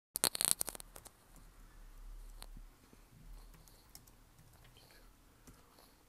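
Computer keyboard keystrokes: a quick run of clicks in the first second, then a few single keystrokes spaced out over the rest.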